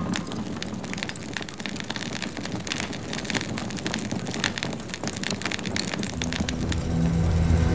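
Steady rushing noise full of many small crackles and clicks. Low, held music tones come in about six and a half seconds in.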